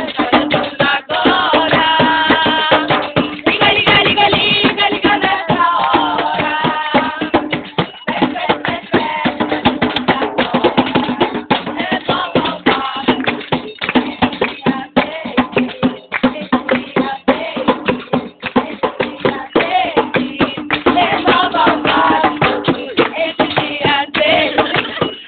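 Band music with drums and percussion playing a steady, busy rhythm under held melodic notes.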